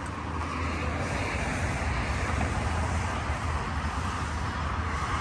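Steady low rumble and hiss of outdoor background noise, with no distinct events.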